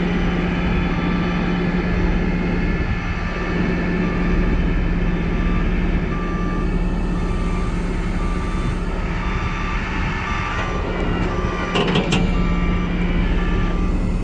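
Heavy truck's reversing alarm beeping steadily about once a second over its engine running. A few sharp clanks sound near the end.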